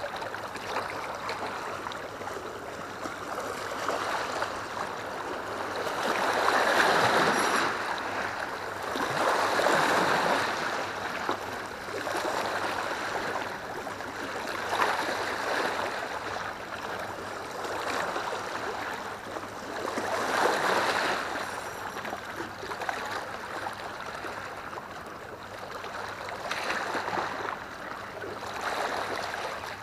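Seawater washing and sloshing against a concrete seawall, swelling and ebbing every few seconds.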